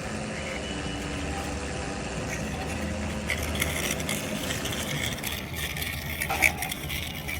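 A steady, engine-like hum with rattling and a few sharp clicks, most of them a little past the middle.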